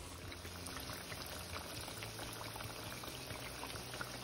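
Diced potatoes fizzing in vegetable oil, a steady hiss of small bubbles peppered with fine crackles: the low-heat first cook at about 110 °C that softens the potatoes.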